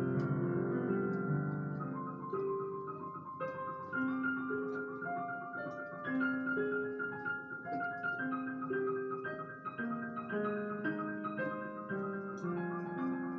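Digital piano playing a slow solo prelude: single held melody notes over sustained lower chords.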